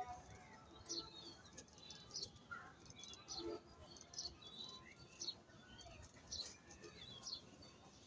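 Faint bird sounds in a pigeon loft: short high chirps repeating every second or so, with an occasional low pigeon coo.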